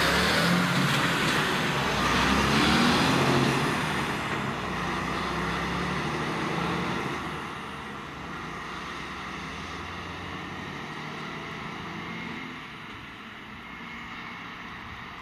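Fire engine's diesel engine and tyres as the truck passes close by and drives off down a lane. The sound is loudest in the first few seconds, then fades in two steps as the truck pulls away.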